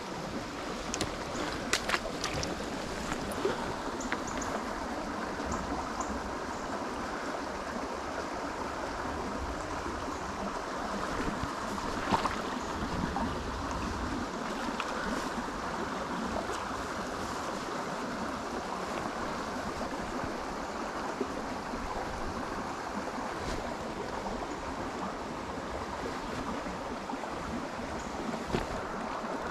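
Small trout stream running, a steady rush of water over the stones, with a few brief faint ticks.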